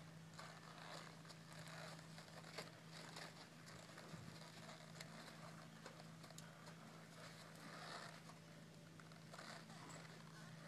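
Faint footfalls of a Missouri Fox Trotter gelding walking in soft arena sand, with small irregular clicks, over a steady low hum.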